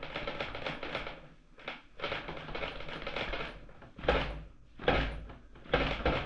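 Electric scooter bounced on by its rider to test the rear suspension: repeated rattling and clattering, with three heavier thuds in the second half as the rear shock compresses, a check for a squeak from the freshly greased rear swingarm.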